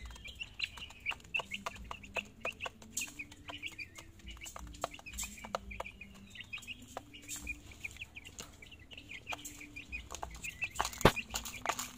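Month-old chicks pecking at a plastic feeder: a rapid, uneven run of sharp taps, with short high peeps scattered throughout and one louder knock near the end.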